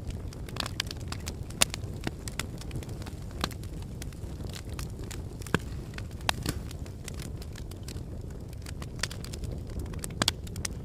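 Volcanic eruption: a steady low rumble with scattered sharp cracks and pops at irregular intervals.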